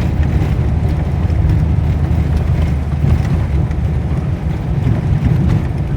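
Vehicle driving along a rough forest road, a steady low engine and road rumble.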